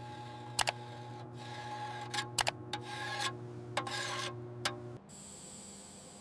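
Hand rubbing or filing strokes in a workshop, several swells of scraping with a few sharp clicks between them, over a steady low hum that cuts off about five seconds in.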